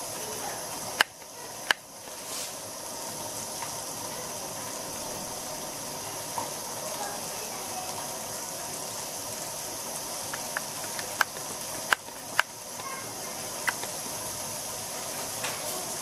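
Thick béchamel sauce with chicken pieces simmering in a pan: a steady bubbling hiss, broken by several sharp pops as thick bubbles burst.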